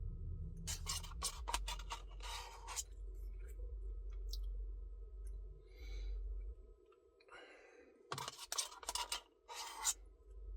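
Spoon scraping and rubbing against the inside of an ice cream cup in several short scratchy bursts, over a low rumble that fades out about two-thirds of the way through.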